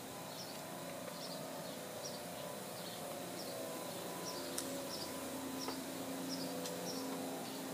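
Outdoor ambience: a short high chirp repeating every half second to second, over a steady low hum, with a couple of faint clicks.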